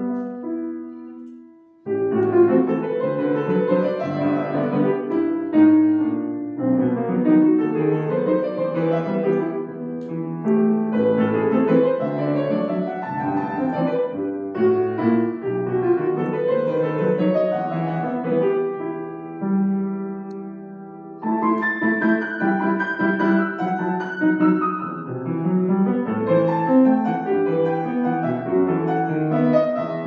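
Solo grand piano playing a pasillo in E minor. Just after the start a phrase ends and the sound dies away, then the playing resumes about two seconds in; a softer held chord about two-thirds through gives way to louder playing.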